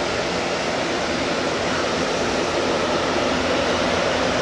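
3-speed box fan running on its highest setting, pulling air through a 20x20 furnace filter: a steady rush of air with a low hum.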